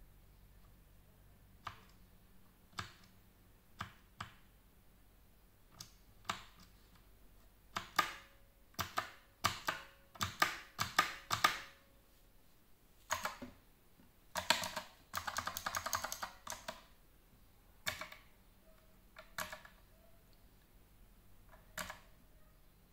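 Mechanical keyboard-style key switches on a SOAIY SH39 soundbar clicking as its buttons are pressed. Single clicks come about a second apart at first, then quick runs of rapid clicking in the middle, then single clicks again near the end.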